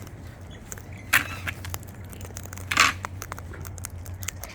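Cockatoos cracking seed with their beaks: a run of small clicks and crunches, with two short harsh squawks, about a second and nearly three seconds in.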